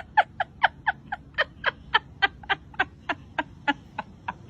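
A cat chattering: a fast run of short, high, chirping calls, about six a second, slowing a little before stopping near the end.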